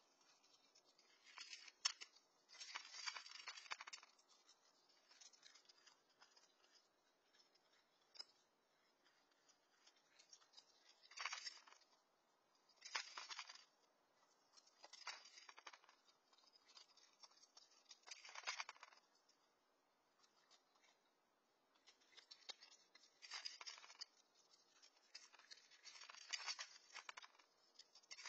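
Raccoon crunching dry cat kibble from a stainless steel bowl, in short crackly bursts a couple of seconds apart with quiet between.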